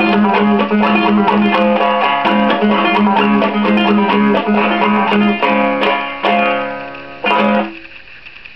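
Banjo played clawhammer style in open D tuning, a rhythmic run of plucked notes over a repeated low note. The tune winds down into two final strummed chords that ring briefly, then the playing stops near the end.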